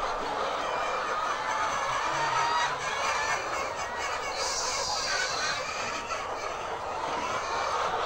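A large flock of white laying hens clucking and chattering together, a steady dense din of many overlapping calls.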